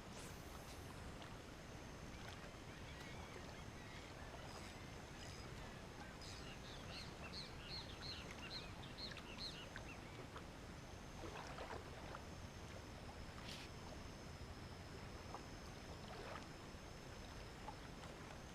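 Faint, steady wash of outdoor noise, with a run of about ten quick, high chirps from an animal about a third of the way in, a few scattered soft rustles, and a faint thin high whine held throughout.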